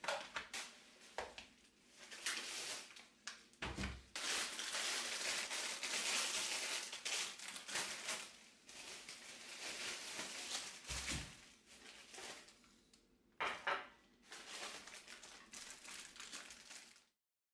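Thin plastic carrier bag rustling and crinkling as groceries are lifted out of it, with a couple of dull thuds as items are set down on a stone worktop.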